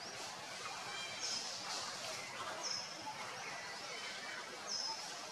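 A bird gives a short, high, even whistle three times, a second and a half to two seconds apart, with fainter chirps beneath, over steady outdoor forest background noise.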